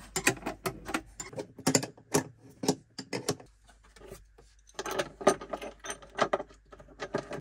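Irregular metallic clicks and clinks of nuts, washers and cable lugs being handled and fitted onto battery terminal studs, with a short pause a little past halfway.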